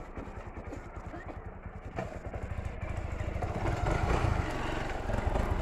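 Honda dual-sport motorcycle engine idling with an even low pulse, then revving louder from about three and a half seconds in.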